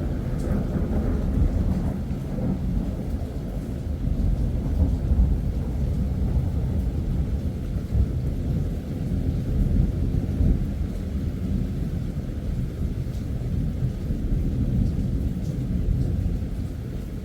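Thunder: a long rolling peal that breaks in with a sharper crack at the start, then rumbles on heavily and continuously, deep and low.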